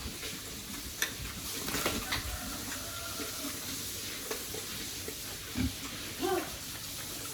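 Pigs in a pen: a steady wet rustling with scattered clicks, and a couple of short grunts near the end.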